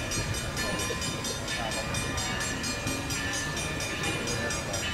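Railroad grade-crossing bell ringing with rapid, evenly spaced strikes as the crossing gate comes down, warning of an approaching train, over a steady low rumble.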